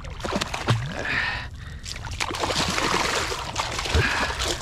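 Water splashing and sloshing as a hooked bluefish thrashes at the surface and a landing net is pushed at it. The splashing gets denser and louder after about two seconds, with scattered knocks.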